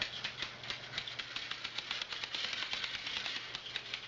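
Rapid, irregular light clicks and rattles of small plastic toys being handled, over a low steady hum.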